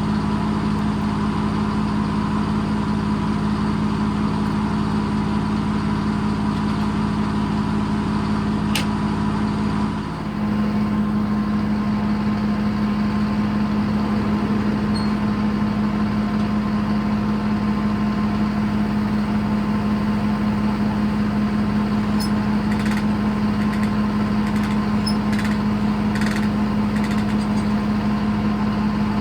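Detroit Diesel engine running an old circle sawmill, a steady drone, with a brief drop in level and a change in its tone about ten seconds in.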